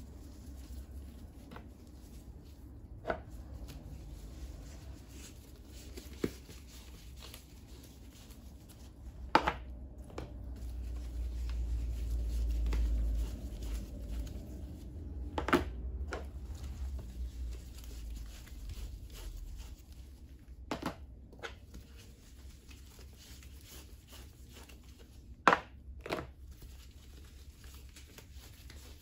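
Plastic tubs being handled and set down on a table: sharp knocks every few seconds, a few of them loud, over the quiet rubbing of a cloth wiping the tubs. A low rumble swells and fades about halfway through.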